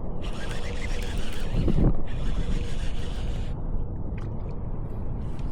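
Fishing reel being cranked in two spells of a second or two, each starting and stopping sharply, over a steady low rumble of wind on the microphone.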